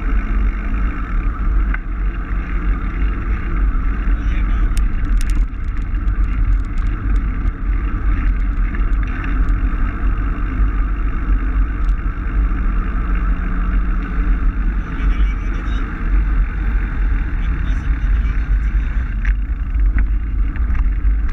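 Steady low rumble of wind buffeting the microphone while riding a bicycle, with no breaks.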